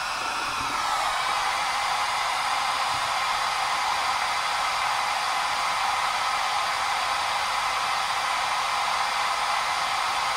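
Pink noise played through loudspeakers and picked up by microphones: a steady hiss with almost nothing in the bass.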